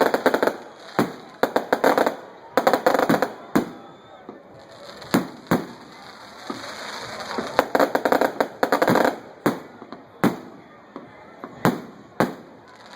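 Firecrackers going off: quick runs of sharp bangs, with single loud pops between them and a hissing stretch in the middle.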